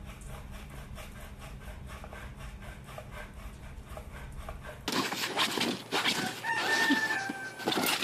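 Soft, even rhythmic scratching about three to four times a second over a low hum. About five seconds in it gives way to louder rustling and knocks, with one drawn-out animal call, a little over a second long and falling slightly in pitch, near the end.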